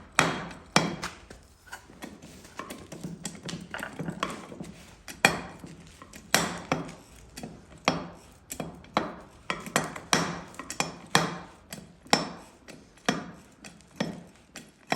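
Irregular sharp metal knocks and clinks, about one or two a second, each ringing briefly, from working a portable hydraulic hose-fitting crimp press.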